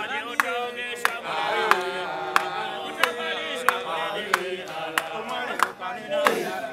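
Several voices chanting together in a sung religious chant, over a steady beat of sharp clicks about every two-thirds of a second.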